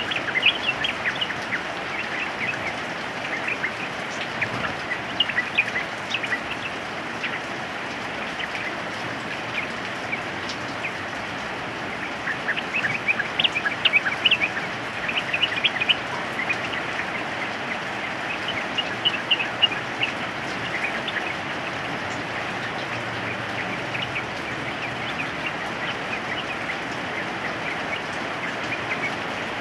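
Yellow-vented bulbuls calling in bursts of short, sharp notes over the steady hiss of rain, the calls loudest and densest around the middle.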